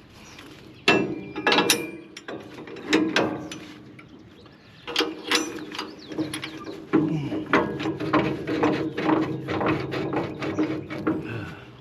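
Metal fasteners being tightened with a ratcheting tool while the drag-back fingers are bolted onto the sawmill: short runs of rapid ratcheting clicks, then a longer steady run of clicking from about halfway through.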